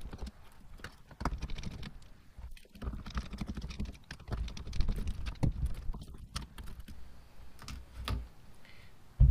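Irregular small clicks and taps of a hand screwdriver working the Torx screws out of a Tesla Model 3 steering wheel, with the plastic parts of the wheel being handled.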